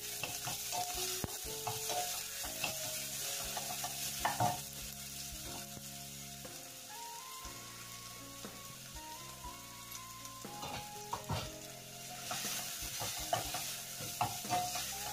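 Sliced onion and garlic sizzling in hot oil in a stainless-steel saucepan, stirred with a wooden spoon that scrapes and taps against the pan, with fewer spoon strokes in the middle.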